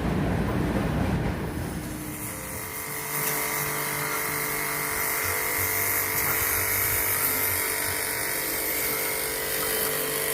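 A low rumble that dies away over the first two seconds, then a small motor running at a steady pitch.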